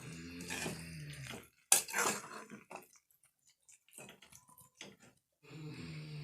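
Metal spoon knocking and scraping against a cooking pan while stirring a cooked masala mixture. There is one sharp knock about two seconds in, then lighter clinks. A low steady hum comes and goes at the start and near the end.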